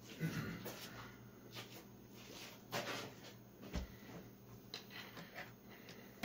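Faint scrapes and light clicks of a 4L60E transmission band and a screwdriver being worked around the anchor pin inside the transmission case, with a dull knock a little past the middle.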